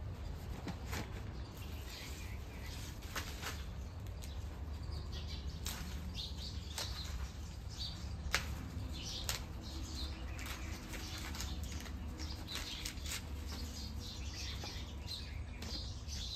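Small birds chirping over a steady low rumble, with scattered sharp clicks.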